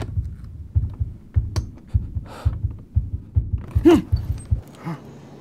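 Fast heartbeat sound effect: low thumps in quick pairs, with breathing and a short gasp over them. The beat cuts off suddenly near the end, leaving a faint hum.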